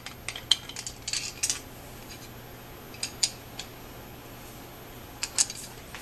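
Light metallic clicks and clinks in several short clusters as small brass pipe fittings and tools are handled.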